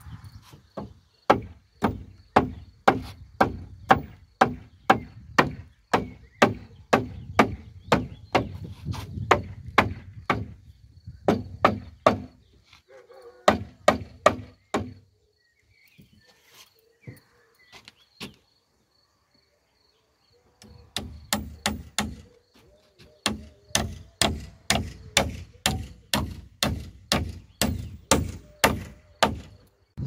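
Hammer driving nails into the wooden frame of a window being fixed into a timber stud wall: sharp, regular strikes about two a second. They stop for several seconds midway, then start again.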